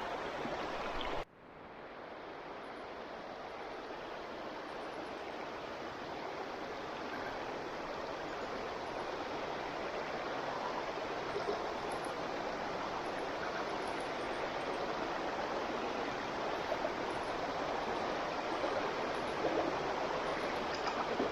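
Running water, like a stream, with a steady rush. About a second in it cuts off suddenly, then fades back in over a few seconds.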